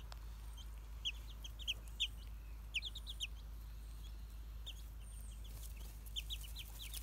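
Young chicks peeping: many short, high-pitched peeps in scattered clusters, sparser in the middle.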